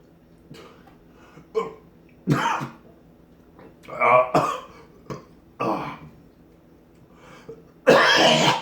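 A man coughing and clearing his throat in about five short bursts, the loudest and longest near the end.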